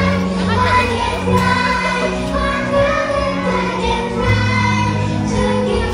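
Music with singing: a song with long held sung notes over steady bass notes.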